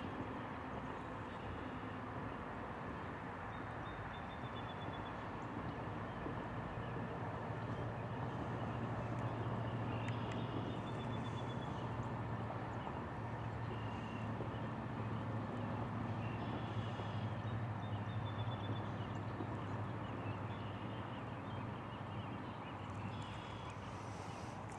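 Steady outdoor background noise with a low hum that swells through the middle, and short high-pitched trills every few seconds.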